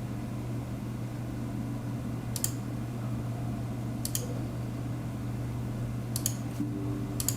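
Desktop PC with a Seagate Exos X22 22TB hard drive installed, running with a steady low hum, and four short clicks spread through.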